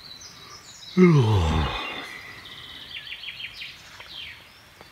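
Birds singing, with a quick run of repeated chirping notes from about two seconds in; about a second in, a man's voice gives a short sound that slides down in pitch.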